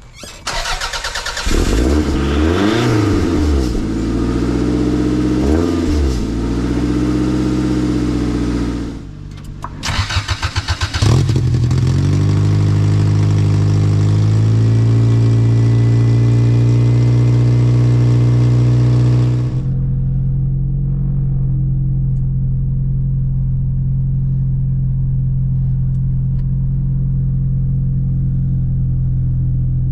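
Toyota MR2 four-cylinder engine started and revved up and down, dying away about nine seconds in. It is cranked again, catches about two seconds later and settles into a steady fast idle.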